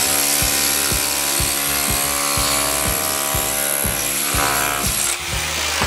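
Cordless power drill running steadily as it works into the brick wall, with a high whine, then stopping about five seconds in. Background music with a steady beat plays underneath.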